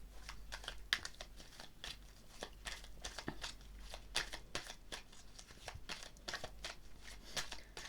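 A tarot deck being shuffled and handled by hand: an irregular run of soft card flicks, snaps and rustles.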